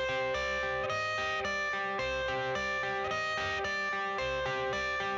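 Background music: a guitar intro playing a repeating plucked riff before the vocals come in.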